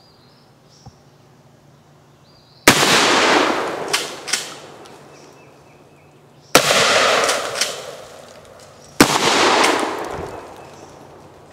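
Three shots from a Kel-Tec KSG 12-gauge pump-action shotgun, the second about four seconds after the first and the third about two and a half seconds later, each echoing away over a second or two. Sharp clacks of the pump being worked come between the shots.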